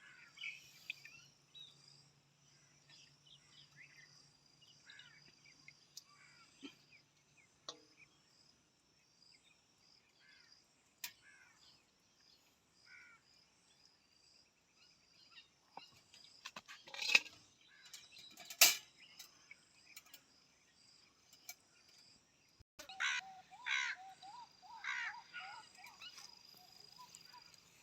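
Outdoor bird calls: scattered faint chirps, then a run of repeated harsh calls near the end. Two sharp knocks stand out about two-thirds of the way through, the loudest sounds here.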